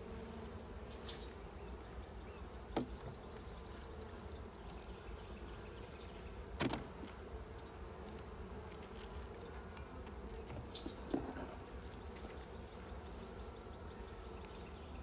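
Honey bees buzzing steadily over an open hive whose frames are being inspected, with a few sharp clicks, the loudest about halfway through.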